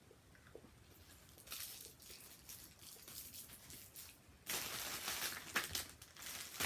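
Candy wrapper crinkling and crackling as it is handled, faint at first and much louder for the last two seconds.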